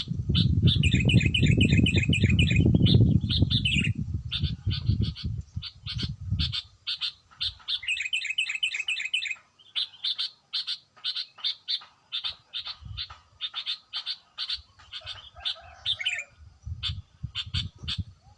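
A bird singing in long series of short, high, repeated notes, several a second, broken by faster trilled runs about a second in and again around eight seconds in. A loud low rumble runs under the first six seconds or so, then stops.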